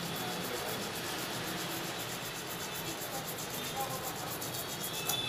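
Toothbrush bristles scrubbing the contacts of a phone's touch-panel flex cable, a steady rapid brushing rasp. It is cleaning rust off the touch strip's connector.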